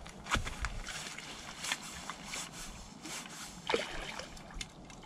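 Water splashing and sloshing with scattered small knocks and clicks, as a hooked carp is played in at the margin.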